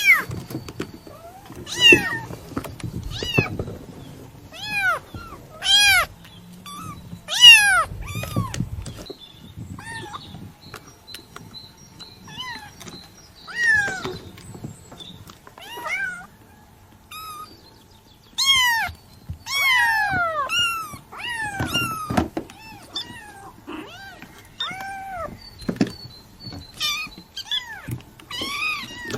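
Kitten mewing over and over: short, high-pitched mews, often two or three in quick succession, with pauses between.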